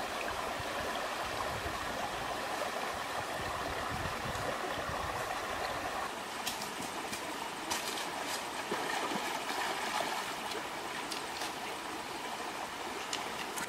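Shallow stream running over rocks, a steady babble of water. Several short, sharp clicks come in during the second half.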